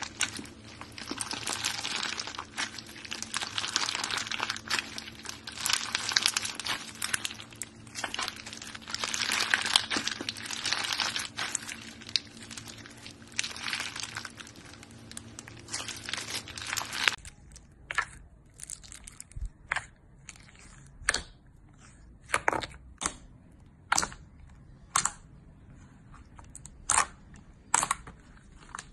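Hands squeezing clear slime packed with faceted plastic gem beads: a dense, continuous crackling with many small clicks. About two thirds of the way through it changes to white foamy slime being poked, a series of separate sharp pops roughly one a second.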